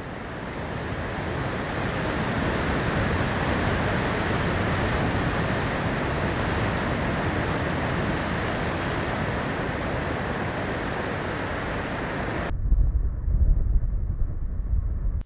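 Sea surf breaking on rocks, a steady rushing that fades in. About twelve seconds in it cuts off abruptly to a low, gusty rumble over open water.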